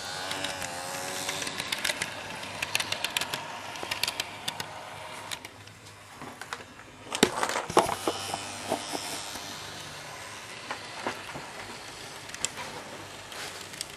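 N gauge model trains running on the track: a faint low motor hum under irregular clicking of wheels over rail joints and points. A cluster of louder knocks about seven to eight seconds in.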